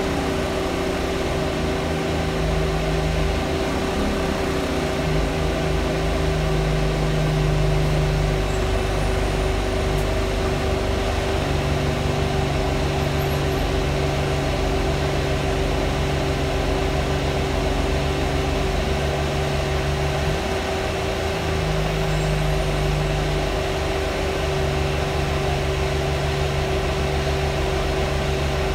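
Loud, steady fan drone inside a double-decker bus, one unchanging hum throughout. The bus's diesel engine runs underneath, its lower note dropping out and returning a few times as the bus moves.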